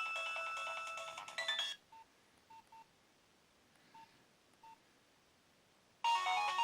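Nokia 2310 ringtone melody that cuts off under two seconds in, then five short single-pitch key beeps as the next ringtone is chosen, and a new ringtone melody starts near the end.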